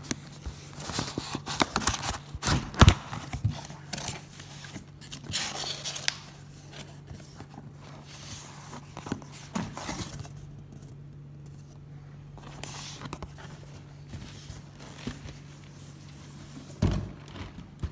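Cardboard boxes handled and opened by hand: scraping, rubbing and tapping of the card, busiest in the first six seconds and sparser after, with one thump near the end. A low steady hum runs underneath.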